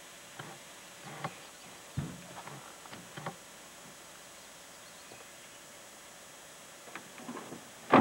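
Irregular light knocks and taps, with a duller thud about two seconds in, a quiet stretch in the middle, and a sharp, louder knock at the very end.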